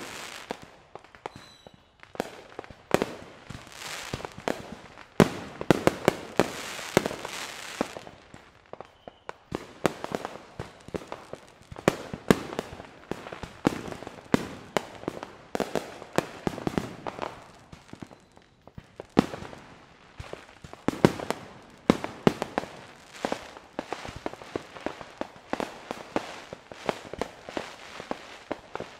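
Fireworks going off at many spots at once: a near-continuous run of sharp bangs and pops at irregular intervals, with crackling and hissing between them.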